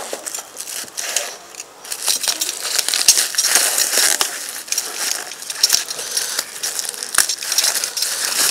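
Packing material being pulled off a motorcycle's handlebar and crumpled by hand: a dense run of crackling and crunching with scattered sharp clicks.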